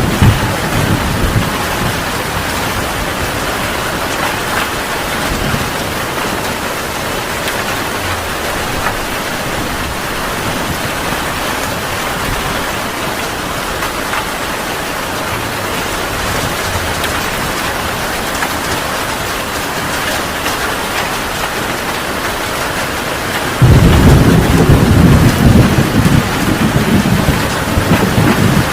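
Heavy rain pouring steadily. Near the end a sudden loud rumble of thunder breaks in and rolls on.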